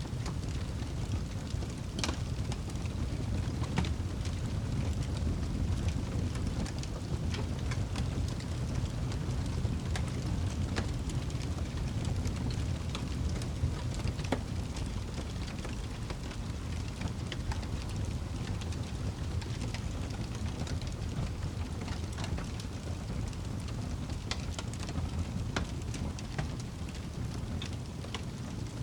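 Wood fire burning in a fireplace: a steady low rumble with scattered crackles and pops, a sharper snap about two seconds in.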